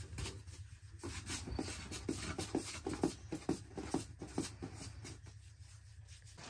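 Hands rubbing flour over a large metal tray and patting and rolling balls of bread dough: irregular pats and rubs, a few a second.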